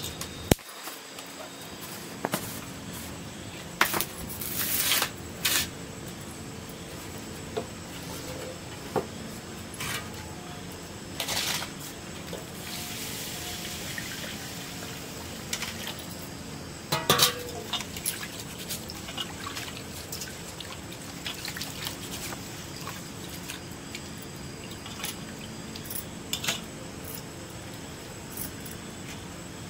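Rice being washed in a steel bowl: water poured over the grains from a second steel bowl, hands swishing and rubbing the wet rice, with clinks of the steel bowls and splashes.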